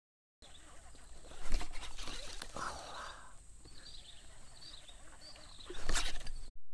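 Outdoor ambience with birds chirping, broken by two sudden loud noises, one about a second and a half in and one near the end.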